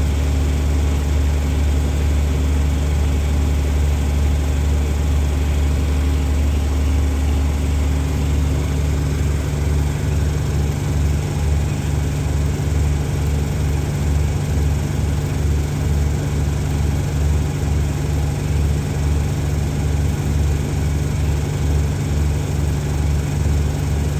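Diesel engine of a passenger train standing at the platform, idling with a steady low hum. About ten seconds in, the hum starts to throb in a regular beat, about twice a second.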